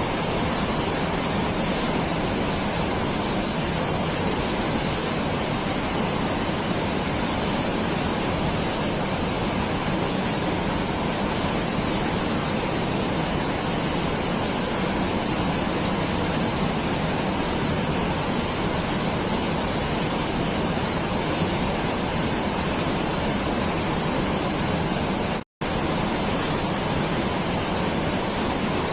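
Steady, even rushing noise that does not change, cutting out for an instant about 25 seconds in.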